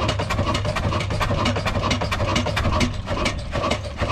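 Old slow-running single-flywheel diesel engine (a "black engine" of the Ruston type) running steadily, its exhaust chuffing in an even, quick beat over a constant low hum. It is driving the tubewell pump through a flat belt.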